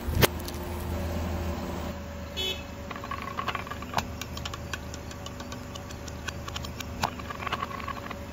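A car tyre crushes a plastic-wrapped packet with one sharp crack just after the start, over the steady low hum of the car's engine. Then come a short squeak about two and a half seconds in and scattered small crackles and ticks as the tyre rolls over the grit and the toy balls on the asphalt.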